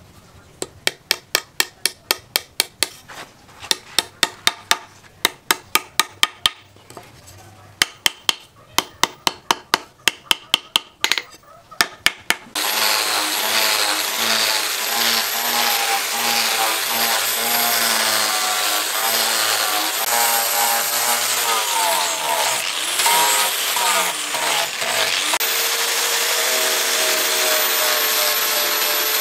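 Runs of quick hammer taps on metal over an anvil, about three a second with short pauses, peening the pins of a wooden knife handle. About twelve seconds in, a DCA angle grinder with a sanding disc starts abruptly and sands the wooden handle scales, a steady whine that wavers and dips under load.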